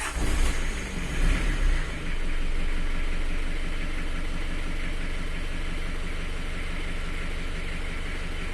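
Isuzu Panther engine revved in a few swells in the first two seconds, then running steadily. This is the strange noise on throttle that the owner wants diagnosed.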